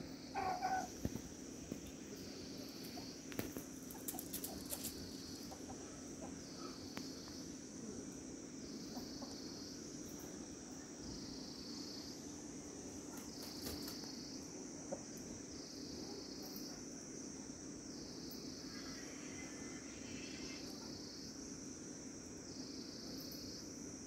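A long-tailed game-fowl rooster gives a few short clucks about half a second in and a fainter call near nineteen seconds. Under them, insects drone in steady high pulses about every two seconds.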